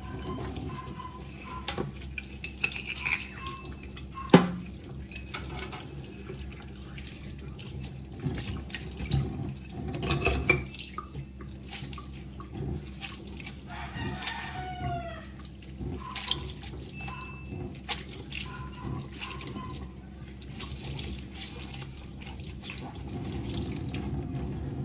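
Tap water running into a kitchen sink while things are washed, with scattered clinks and knocks and one sharp clatter about four seconds in.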